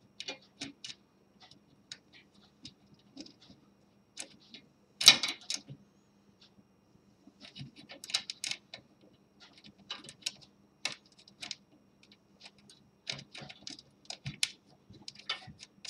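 Irregular small metallic clicks and rattles of hand nuts being threaded by hand onto the spring-loaded bolts of a 3D printer heatbed, with a louder clatter about five seconds in.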